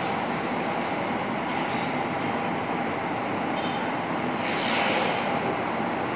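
Steady rushing hiss with a constant hum under it: a teriyaki-basted ribeye steak sizzling over a charcoal robatayaki grill. A louder hiss swells briefly about five seconds in.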